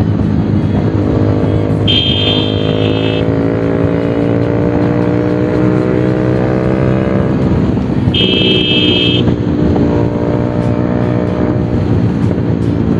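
Bajaj Pulsar 220's single-cylinder engine running through an aftermarket SC Project exhaust while riding, its pitch rising twice under acceleration. Two short, high-pitched beeps of about a second each sound over it, a couple of seconds in and again about two-thirds of the way through.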